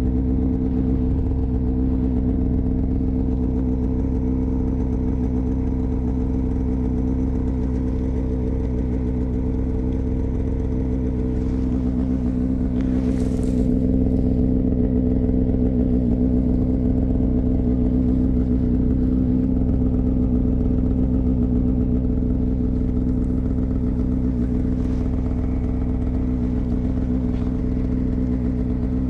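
Snowmobile engine running steadily at a constant pitch, with a brief hiss about thirteen seconds in.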